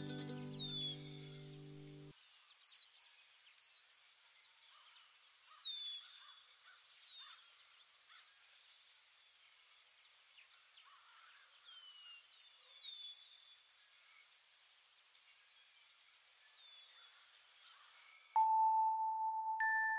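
Faint bird and insect ambience: short downward-gliding bird chirps at irregular intervals over a high, evenly pulsing insect trill. Music with low notes fades out about two seconds in, and music with bell-like held notes starts near the end.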